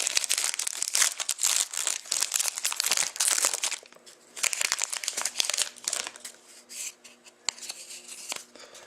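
Plastic wrapping on a pack of trading cards crinkling and tearing as it is opened by hand, busy for about the first four seconds, then sparser rustling and small clicks.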